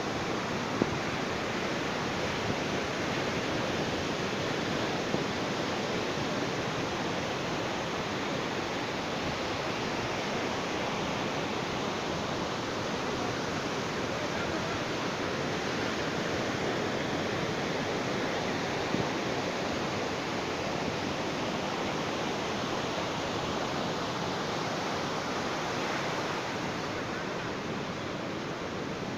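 Ocean waves breaking on a beach: a steady, continuous wash of surf that eases slightly near the end.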